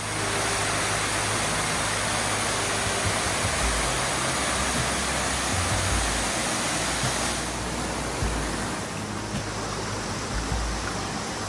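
Waterfall rushing: a loud, steady rush of falling water that starts abruptly, its highest hiss dropping off about seven seconds in and leaving a duller rush.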